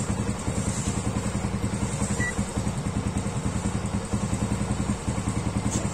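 Motorcycle engine idling steadily with a fast, even pulsing beat. A brief high beep sounds about two seconds in.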